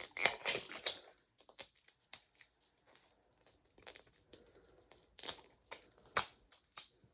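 Paper wrapping being torn and crumpled off a Mini Brands toy capsule: a dense crinkling in the first second, then scattered rustles, with two louder rips about five and six seconds in.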